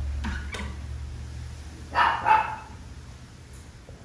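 A dog giving two short barks in quick succession, about two seconds in.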